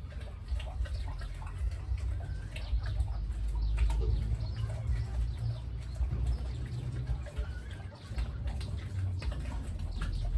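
Farm birds, chickens among them, calling in short scattered clucks and calls over a steady low rumble.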